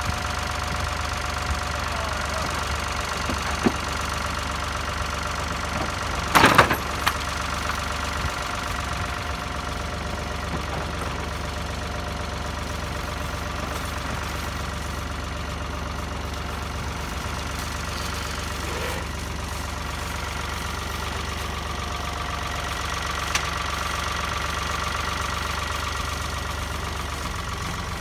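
Ford farm tractor's engine idling steadily, with a brief loud clatter about six seconds in.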